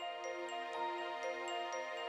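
Chiming music of bell-like mallet notes, about four notes a second, each note ringing on over the next.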